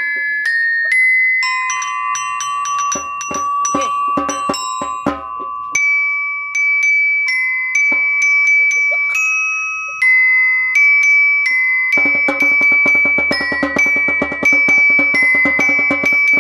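A metallophone of metal bars struck with mallets, playing a melody of ringing notes. About twelve seconds in, a fast, even percussion beat joins underneath.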